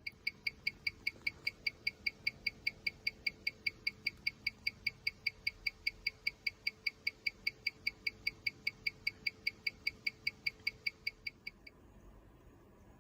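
Mechanical watch movement (Mido Multifort cal. 1200C) ticking steadily at about four to five ticks a second. The ticking stops abruptly near the end.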